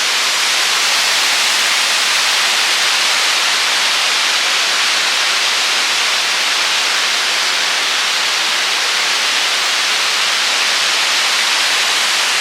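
Vinnufossen waterfall's falling water close by: a loud, steady rushing hiss.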